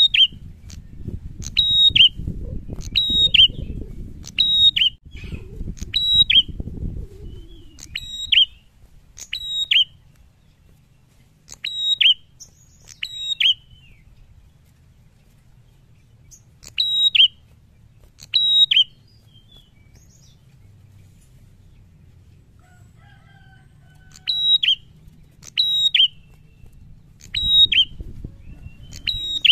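A caged prenjak calling: sharp, high two-note chirps, each stepping down in pitch, repeated about once a second, with a long pause in the middle. Its wings flutter against the air during the first several seconds and again near the end.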